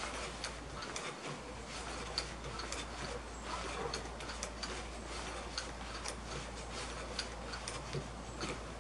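Yamada YS FZ-53 four-stroke glow engine being primed by hand: the propeller is flipped over again and again, with light, sharp clicks at an irregular pace of about one or two a second.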